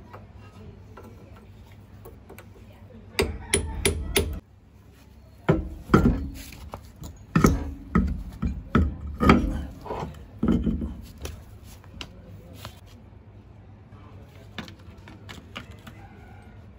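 Hammer blows during drum brake work: a quick group of four strikes about three seconds in, then a longer run of heavier blows from about five and a half to eleven seconds, followed by a few faint knocks.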